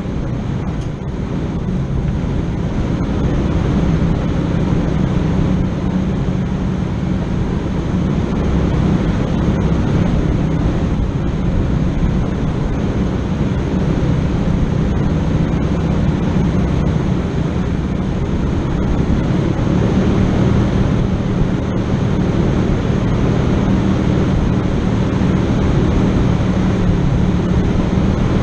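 A four-wheel-drive vehicle's engine running steadily under an even wash of low noise.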